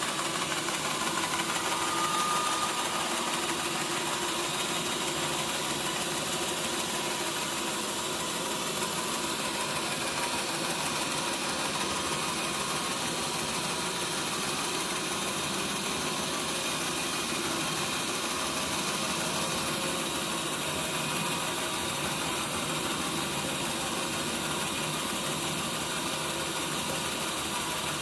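Sawmill machinery running steadily, an even engine-like hum with no clear start, stop or change in pitch.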